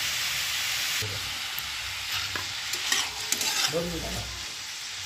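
Mushrooms, peas and capsicum frying in a metal kadhai, sizzling steadily as a metal spatula stirs the just-added turmeric and salt through them. The sizzle is strongest in the first second, then eases. From about two seconds in, short scrapes and clicks of the spatula against the pan come in.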